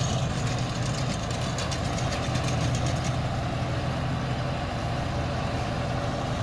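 Tractor engine running steadily while driving a round baler, with a fast rattle of clicks from the baler's mechanism that stops about halfway through.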